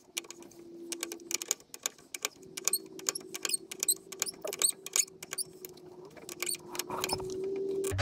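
Ratchet wrench clicking in quick, irregular runs, with small metal clinks, as a fitting on the fuel filter housing of a 7.3 IDI diesel is loosened. A faint steady hum runs underneath.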